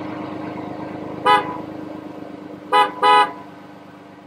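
Car engine idling while a car horn honks three times: one short toot about a second in, then two more close together near three seconds, the last a little longer. The engine sound fades away toward the end.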